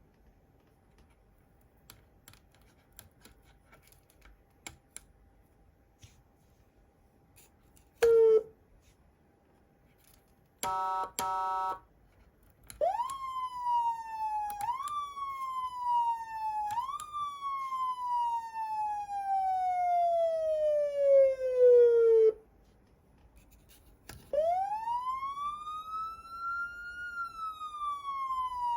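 Federal Signal PA300 electronic siren amplifier being worked through its tones. First come faint switch clicks and a short blip, then a steady horn tone for about a second. Then three quick rising sweeps, each sliding slowly back down, fade into a long falling tone that cuts off. Near the end a slow wail rises, falls and starts to rise again.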